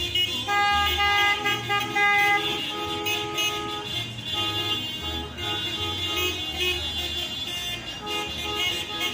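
Car horns honking in several long blasts over the noise of passing cars.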